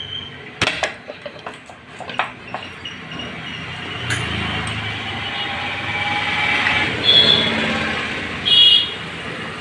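A few sharp metal clinks, then a road vehicle passing by, its noise swelling and fading, with two short horn toots near the end.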